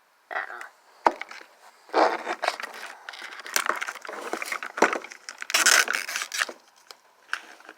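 Small plastic packaging crinkling and rustling as it is unwrapped and handled, in irregular bursts, with a sharp tap about a second in.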